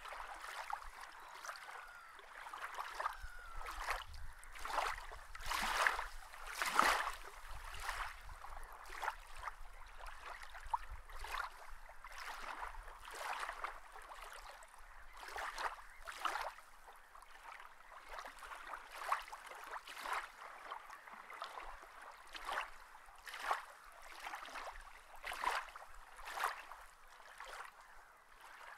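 Water lapping and splashing in small, irregular washes, about one every second.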